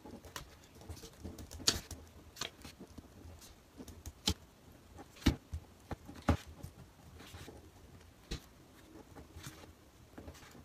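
Pen writing on sticky notes and the notes being handled: quiet, irregular light taps and clicks with soft scratching between them.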